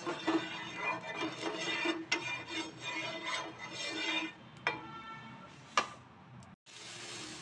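Wooden spatula rubbing and tapping on a non-stick tawa as it spreads oil, with a few sharp clicks, under background music. Near the end the sound breaks off for an instant, then a steady hiss follows.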